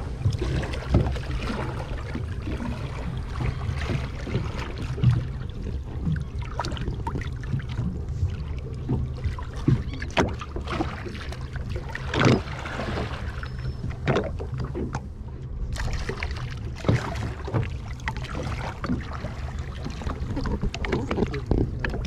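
Water lapping and splashing against the side of a small open boat as a grey whale surfaces alongside, over a steady low wind rumble on the microphone. Short splashes come throughout, the loudest rush of water about twelve seconds in.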